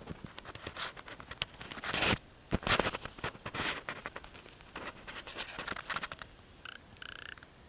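Irregular scratching and scraping clicks with a few louder rustling bursts, then two short squeaky notes near the end.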